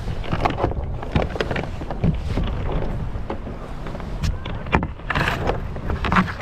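Scattered knocks and clatter on a sit-on kayak as a Werner paddle is stowed along its side and the angler shifts about in the seat, with a brief louder rustle about five seconds in. Under it runs a steady low rumble of wind on the microphone.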